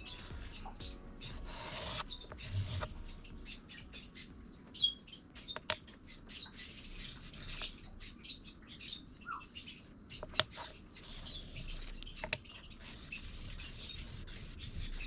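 Intermittent rubbing and scraping during hand work, broken by a few sharp small clicks, with bird chirps in the background.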